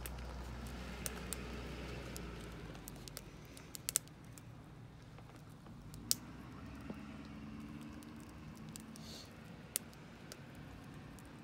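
A small fire crackling faintly while a marshmallow toasts over it, with scattered sharp pops and clicks. A low rumble under it fades out after about three seconds.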